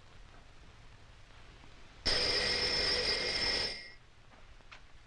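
Telephone bell ringing once, for about a second and a half, starting about two seconds in.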